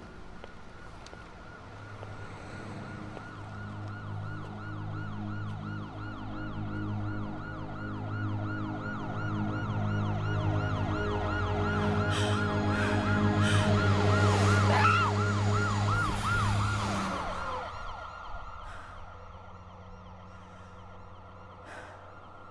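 Emergency vehicle siren sounding in rapid rising-and-falling sweeps over a low drone, growing steadily louder and then cutting off abruptly about seventeen seconds in.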